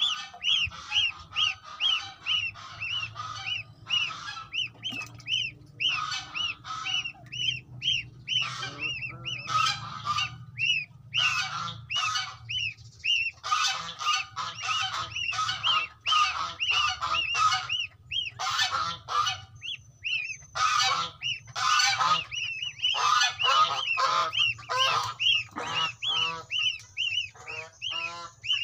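Several goslings peeping over and over, calling to their siblings and mother. The calls are short, high and rising, two or three a second, with louder, rougher calls from several birds at once.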